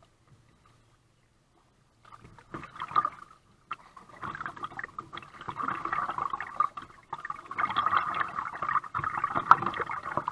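Kayak paddling: water splashing and sloshing, with sharp splashes from the paddle. It starts about two seconds in after a near-silent moment and grows louder toward the end.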